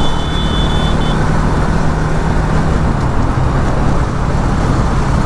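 Bajaj Pulsar NS200 BS6 single-cylinder engine running under way, freshly serviced, under heavy road and wind noise. The engine note drops a little about three seconds in. A brief high-pitched tone sounds in the first second.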